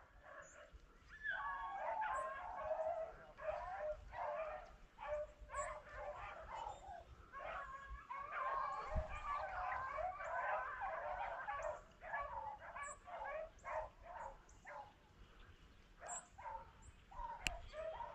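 A pack of rabbit hounds baying and yelping while running a rabbit's trail: a faint, busy chorus of overlapping cries that starts about a second in and thins out near the end.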